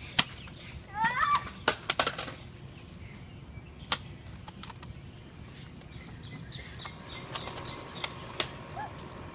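Foam-dart blasters firing and darts striking: a handful of sharp snaps at uneven intervals, the loudest just after the start. About a second in there is a short rising squeal of a voice.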